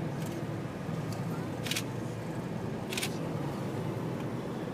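Steady low hum of a slowly moving vehicle, heard from inside the cabin, with three short hissing sounds over the first three seconds.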